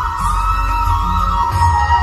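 Instrumental music: a single high melody line gliding and stepping between notes over a steady low bass.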